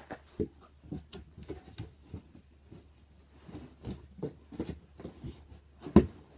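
Foam packing and a cardboard box being handled: irregular rustles, creaks and light knocks, with one louder knock near the end.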